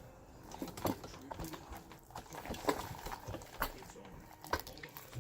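Homemade glue slime being squeezed and kneaded by hand, making irregular sticky clicks and pops.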